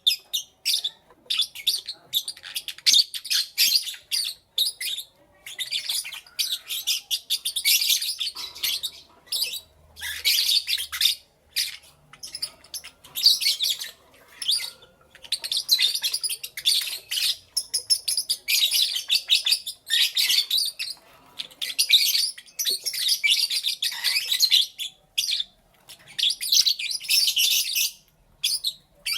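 Lovebirds chirping: rapid, high-pitched chirps in dense bursts of a second or two, broken by short pauses.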